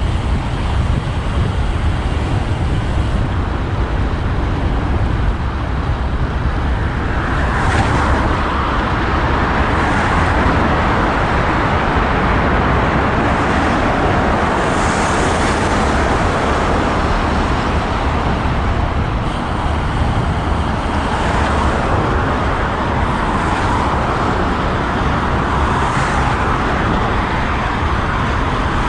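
Road traffic noise with a steady low wind rumble on the microphone of a moving road bike; the traffic noise gets louder about a quarter of the way in and stays up, as vehicles pass.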